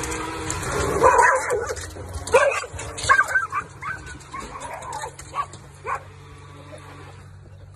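Dogs yelping and barking excitedly at a remote-control boat: a rapid string of short, high calls that tails off after about six seconds.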